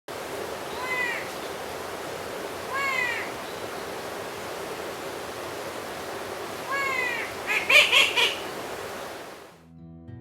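Outdoor garden ambience with a bird calling: three short calls, each curving down in pitch, about one, three and seven seconds in, then a quick run of sharp notes around eight seconds. The ambience cuts off suddenly about nine and a half seconds in.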